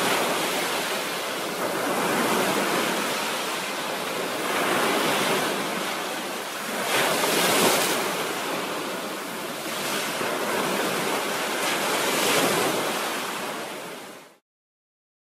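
A loud rushing noise that swells and eases every two to three seconds, starting and stopping abruptly.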